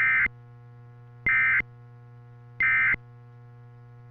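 Emergency Alert System end-of-message (EOM) tones on NOAA Weather Radio: three short digital SAME data bursts about a second apart, marking the end of the test tornado warning. A steady low hum runs underneath.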